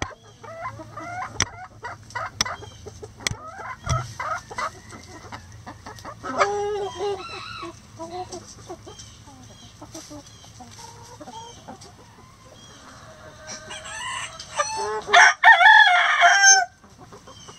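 Hens clucking and calling on and off, with a rooster crowing loudly near the end, the loudest sound, which stops abruptly.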